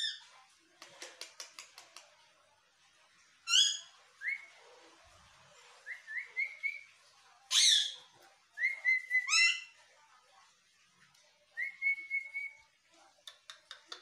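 Alexandrine parakeet whistling: a string of short whistles and rising whistled glides, some held flat on one note, the loudest a high sweep about halfway through. Quick runs of clicks come about a second in and again near the end.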